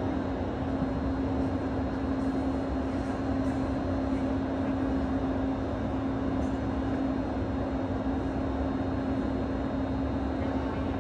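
Steady machinery hum of an indoor ice rink's plant: a constant low drone over an even rush of air noise, unchanging in level.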